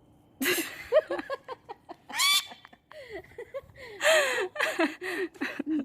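Pet lorikeets screeching: a string of loud, harsh calls, some rising in pitch, with shorter chirps between them.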